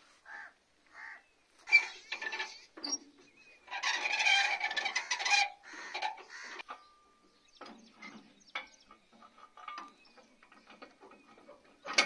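Scattered metal clinks and a longer, louder clatter about four seconds in, from hand work on a tractor's three-point hitch linkage and turnbuckle while a plough is being hitched on.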